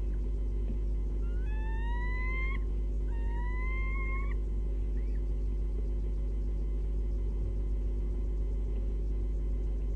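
An animal gives two drawn-out calls, each rising in pitch and lasting over a second, about a second apart, with a faint short chirp after them, over a steady electrical hum.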